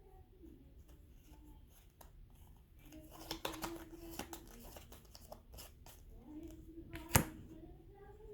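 Trading card pack's foil wrapper crinkling and tearing, loudest about three seconds in, with cards being handled and one sharp snap or click near the end.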